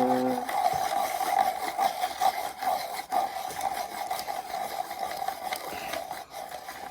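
Electric pencil sharpener running with a steady motor hum while its blades grind down a pencil, the whirring easing a little toward the end as the point is finished.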